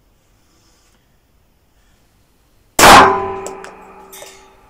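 A single loud shot from an AMT Automag II .22 Magnum pistol about three seconds in, followed by a metallic ringing echo that fades over about a second and a half.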